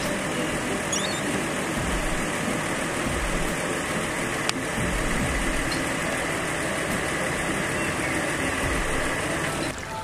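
Rattlesnake rattling: a steady, dense buzzing hiss that stops shortly before the end.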